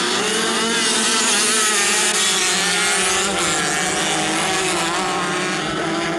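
Several TT dirt-track racing motorcycles at speed, loud, their engine notes rising and falling together as the riders throttle through a turn and accelerate away.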